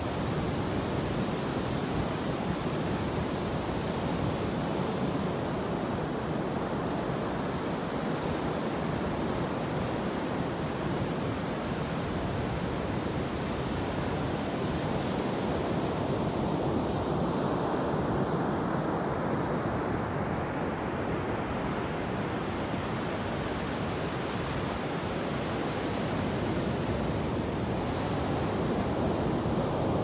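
Ocean surf breaking offshore and shallow waves washing up a flat sandy beach, a steady rushing wash of water.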